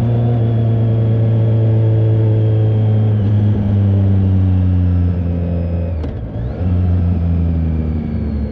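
BMW K1300R inline-four running through an aftermarket AC Schnitzer exhaust under riding load, with a steady engine note. About six seconds in the sound dips briefly, then the engine carries on at a lower pitch.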